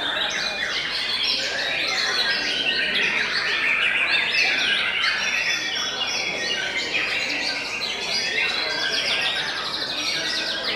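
Many caged white-rumped shamas singing at once in a contest round, their overlapping songs a dense stream of rapid whistles, chirps and trills. A run of fast repeated notes comes near the end.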